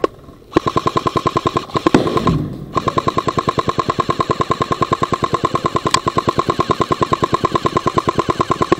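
Airsoft gun firing on full auto: long bursts of rapid, evenly spaced shots with a steady whine, starting about half a second in, with a short break about two and a half seconds in, then one continuous burst to the end.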